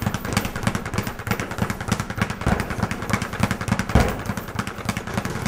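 Speed bag being punched in a fast, even drumming rhythm of several hits a second, with one louder thump about four seconds in.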